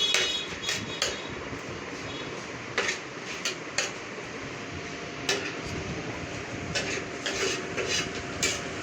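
Metal utensil knocking and scraping against a tawa as the chicken masala is mixed, in irregular clicks over a steady background hiss.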